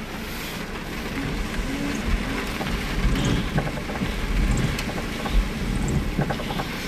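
Rain laden with volcanic ash falling on a car, heard from inside the cabin: a steady hiss with scattered ticks of drops striking the body and glass, over a low rumble.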